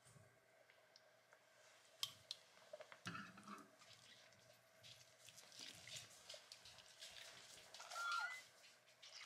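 Faint wet squelching of a cloth bag of yogurt being squeezed by hand to press out the whey, a few irregular squishes, the loudest with a short squeak near the end.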